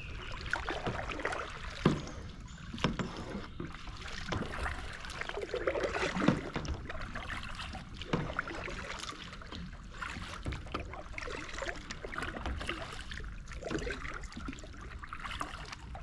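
Kayak paddle strokes splashing in the water one after another under hard racing effort, with water washing along the hull and a few sharper knocks among them.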